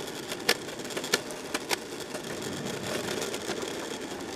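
Electric skateboard wheels rolling over rough asphalt, a steady gritty rumble with a few sharp clicks in the first two seconds, the road noise drowning out the near-silent hub motors.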